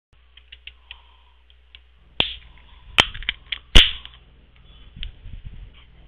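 A series of sharp clicks over a low hum: a few faint ticks, then three loud snaps a little after two seconds, at about three seconds, and just before four seconds in, the last the loudest, with smaller clicks in between.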